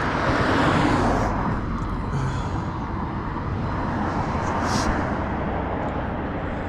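Street traffic: a vehicle passes, its noise swelling in the first second or so and then fading to a steady road rumble.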